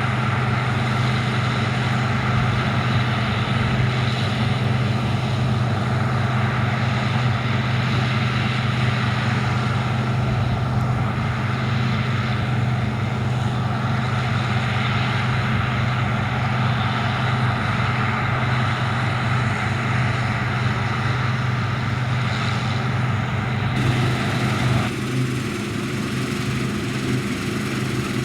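Large farm diesel engine running steadily at constant speed with a deep, even hum. The sound shifts abruptly about 24 seconds in.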